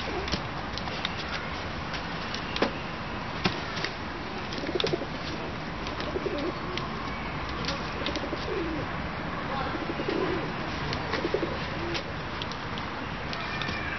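Pigeons cooing: low coos repeat several times through the middle over a steady outdoor background, with scattered sharp clicks.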